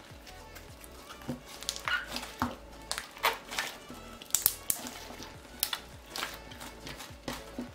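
Hands kneading slime mixed with soft clay into butter slime, making irregular sticky clicks and wet pops, with background music.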